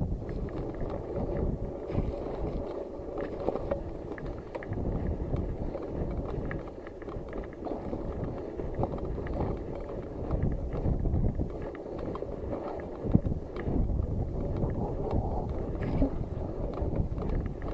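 Mountain bike riding a muddy dirt track: the tyres churn through mud and puddles with a steady rumble, and the bike rattles with scattered sharp knocks over bumps, while wind buffets the microphone.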